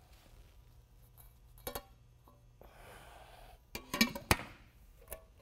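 A metal paint-style can being handled on a hard floor: a few sharp metallic clinks and knocks, the loudest two close together about four seconds in.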